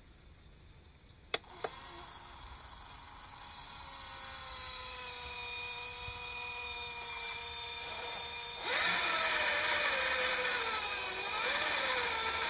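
Small electric motor and gearbox of an MN99S RC crawler whining under throttle while the truck is stuck in a muddy rut. The whine slowly grows, gets clearly louder about two-thirds of the way through, then wavers in pitch. Two sharp clicks come about a second and a half in.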